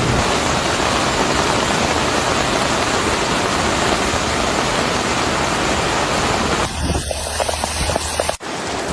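Loud, steady rush of flowing floodwater. About seven seconds in the sound shifts to a different mix with a low hum, then cuts off abruptly and the water sound resumes.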